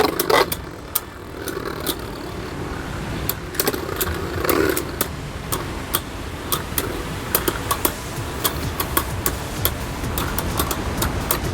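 Two Beyblade Burst spinning tops, Vise Leopard and Bloody Longinus, spinning against each other in a plastic stadium: a steady whirring grind with sharp clacks as they collide, the hits coming more often in the second half.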